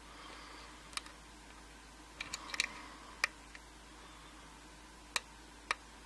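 Small, sharp metal clicks of a hook pick and tension wrench at work in an Evva DPS euro cylinder, the pick lifting the elements of its sidebar lock one by one. The clicks are scattered, with a quick cluster of several about two and a half seconds in.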